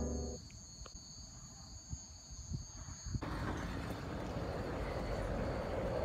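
A low droning music chord fades out in the first half-second. After a quiet stretch with a few faint thumps, steady outdoor street noise with car traffic cuts in abruptly about three seconds in.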